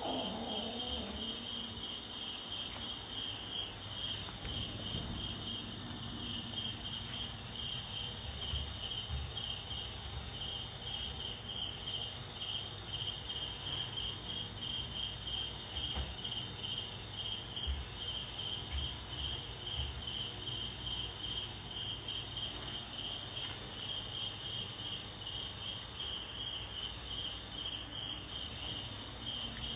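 Cricket chirping steadily: a rapid, even series of high-pitched chirps.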